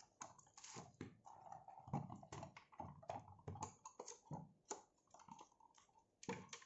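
Faint, irregular clicks and taps of plastic parts being handled as an LED ring-light desk lamp is assembled, its cable threaded and its metal stem fitted into the plastic base.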